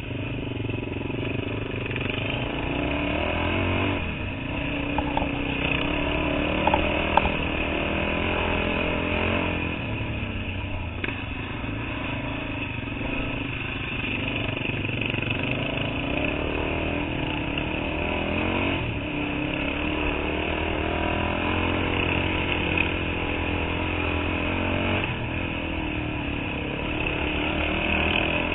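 Dirt bike engine running while riding a dirt trail, its revs rising and falling with the throttle. There are a few sharp knocks about a quarter of the way in.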